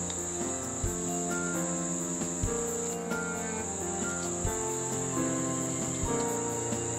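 Crickets chirping in a steady, high, pulsing drone, over background music of slow held notes with a soft beat.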